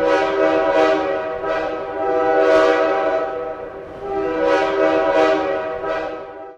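Logo sting: a sustained chord of several steady, horn-like tones swelling in two waves, with airy whooshes rising over them, then cutting off suddenly near the end.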